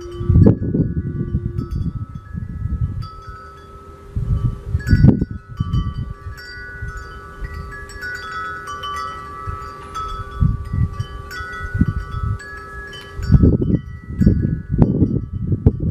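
Wind chimes ringing, several notes struck at random and overlapping as they die away. Gusts of wind rumble on the microphone, heaviest near the start, about five seconds in and near the end.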